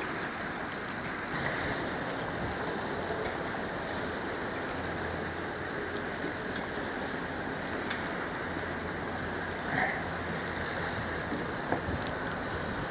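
Steady wash of wind and surf, with a faint low hum in the middle part.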